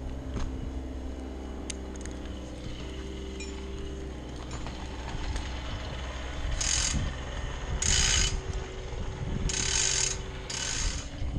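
Arborist's rigging rope being pulled by hand through the rigging hardware at the top of a spar, giving about five short rasping zips in the second half, over a steady low hum.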